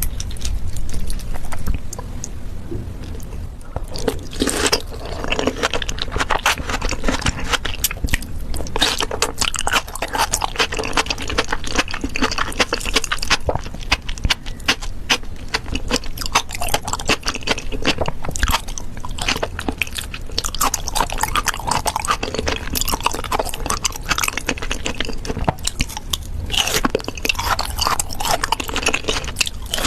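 Close-miked ASMR eating: chewing and biting with many wet mouth clicks and smacks, sparse at first and dense from about four seconds in.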